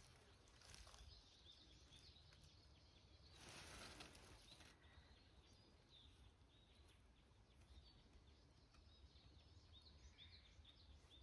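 Near silence: faint outdoor ambience with a few faint, short bird chirps and a couple of brief soft rustles.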